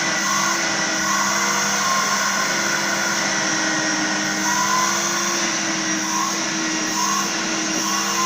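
Vacuum cleaner running steadily.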